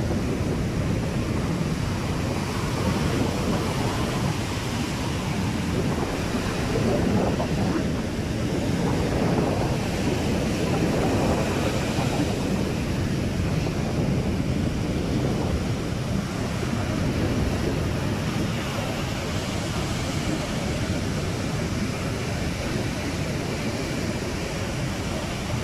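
Ocean surf washing onto a sandy beach, a steady noise that swells and eases, with wind buffeting the microphone.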